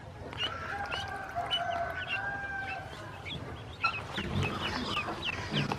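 Ducklings peeping: many short, high chirps that fall in pitch, several a second. From about half a second in, a longer drawn-out call holds steady for about two seconds beneath them.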